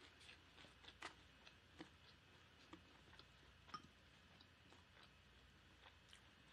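Near silence with faint, scattered clicks of eating: chewing and mouth sounds, and chopsticks picking up food.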